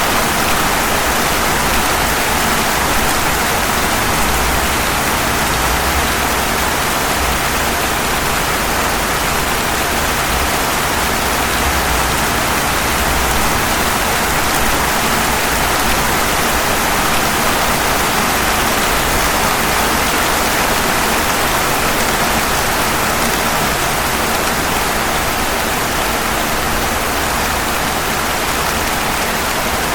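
Steady rain falling on pavement: a constant, even hiss with no separate drops or other events standing out.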